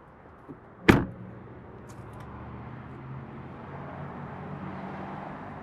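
One sharp, loud slam about a second in, like a car door being shut, followed by a steady low hum.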